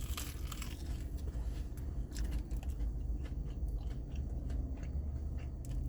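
A person chewing a mouthful of Korean corn dog close to the microphone, with small irregular crunches from the fried batter crust, over a steady low hum.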